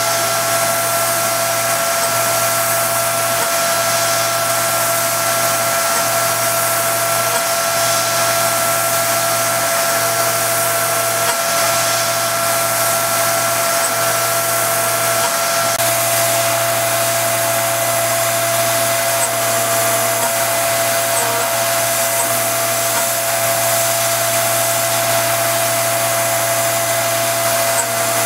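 RF45 CNC mill spindle running a 1/8-inch ball end mill at 6800 RPM, steadily 3D-surfacing the front panels of a 1911 slide: a constant hum and whine with a hiss over it. One of the whine tones drops out about halfway through.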